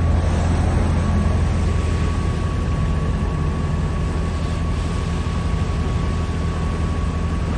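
A steady engine rumble with a faint high whine over it.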